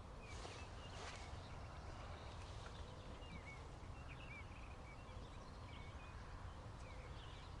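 Faint outdoor background: small birds chirping in short, scattered calls over a low steady rumble.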